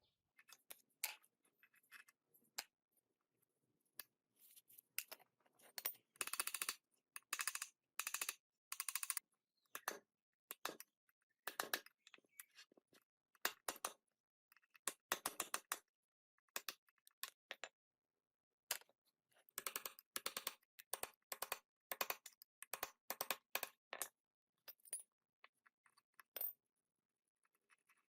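Small metal parts and hand tools clinking and scraping in short, irregular bursts with pauses between, as gearbox parts are handled and worked on.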